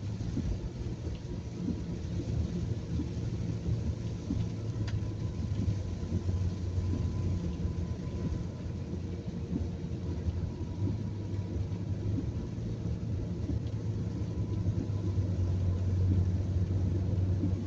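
Car driving in the rain, heard from inside the cabin: a steady low rumble of engine and tyre noise, with rain on the car.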